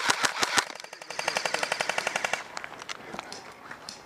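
Airsoft guns firing: a close, loud string of rapid shots at about six a second for the first half second or so, then a faster, fainter burst from about one second in to about two and a half seconds, with scattered shots after.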